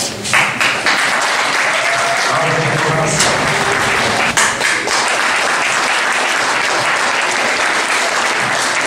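An audience clapping steadily, starting a moment in and holding at an even level.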